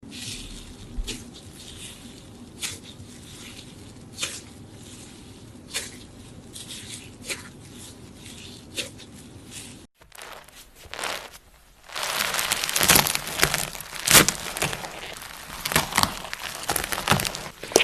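Slime being squeezed and stretched by hand: a soft, sticky haze with a crisp pop about every second and a half, then, after a cut just before halfway, a louder run of dense crackling and crinkling.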